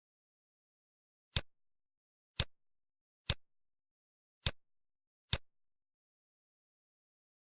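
Five sharp computer mouse clicks at irregular intervals, each with a faint second tick of the button's release just after it.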